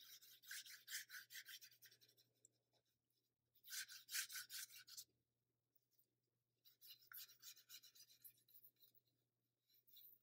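Faint swish of a watercolor brush's bristles scrubbed back and forth in quick strokes, about five a second, in three short spells.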